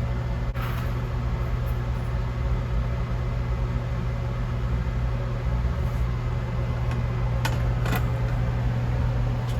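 Steady low machine hum, with a brief hiss about half a second in and a few faint clicks near the end.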